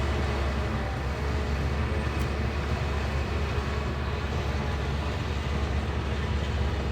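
Heavy earthmoving machinery's diesel engine running steadily under load, a continuous low drone with no breaks.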